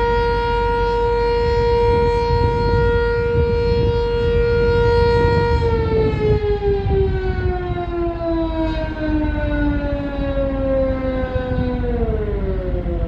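Sentry 7V8 outdoor warning siren holding a steady tone, then starting to wind down about five and a half seconds in, its pitch sliding slowly lower and dropping more steeply near the end as the siren run finishes.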